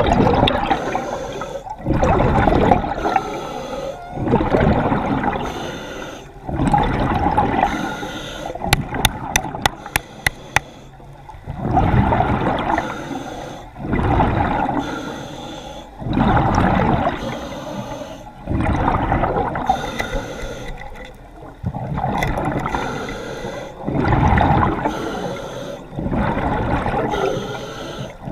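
A diver's breathing heard underwater: bubbly, rushing surges of breath and exhaled bubbles that rise and fall about every two seconds. A quick run of sharp clicks comes about nine seconds in.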